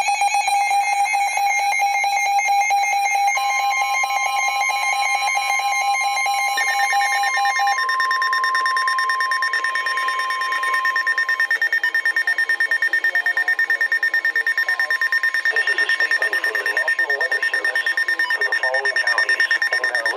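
NOAA Weather Radio Emergency Alert System header data bursts, several copies layered into a harsh warbling electronic buzz. The steady weather radio warning tone joins a few seconds in and stops about eleven seconds in. Rapid, evenly pulsing buzzing carries on after it.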